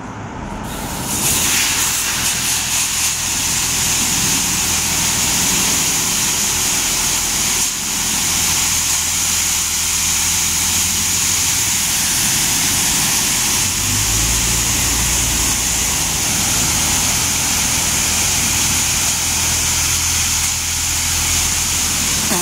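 Washworld High Velocity touchless car wash spraying the car through its high-pressure nozzles: a loud, steady hiss of spray that starts about a second in, with a low hum coming in about halfway through.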